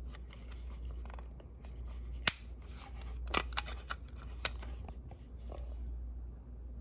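Handling noise from a Panasonic SX56 cassette Walkman: its plastic battery door and cassette lid are worked by hand, giving light rustling and a few sharp clicks between about two and four and a half seconds in.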